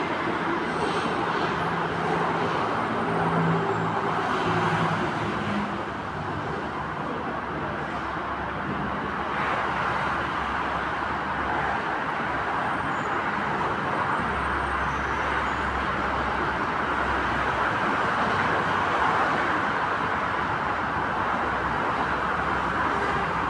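Steady hum of road traffic around an elevated metro station, with the low motor hum of a departing Alstom AS-02 metro train fading away over the first few seconds.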